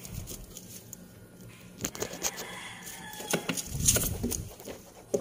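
Frozen ice candies in plastic bags rustling and knocking against each other and the freezer shelf as they are taken out of a freezer, with scattered clicks and a few duller thumps about four seconds in.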